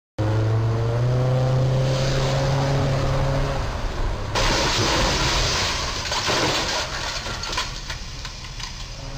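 A motor home's engine running steadily with a slightly rising pitch as it approaches. About four seconds in comes a sudden crash as the camper body strikes the low railroad bridge's steel crash beam, followed by a couple of seconds of noisy scraping and rattling that fades out.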